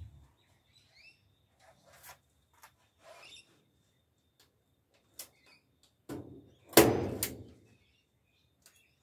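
A few faint bird chirps and small ticks, then a knock about six seconds in followed by a louder thump and clatter just before seven seconds.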